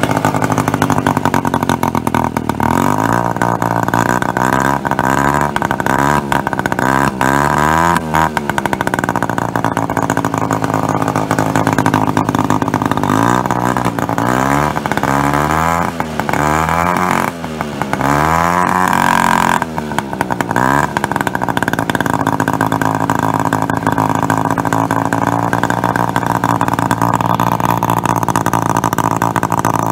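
Babetta 210 moped's 50 cc two-stroke single-cylinder engine running through an Akrapovič silencer, heard close to the exhaust outlet. It idles, then is revved in short throttle blips about one a second in two runs, and settles back to a steady idle for the last several seconds.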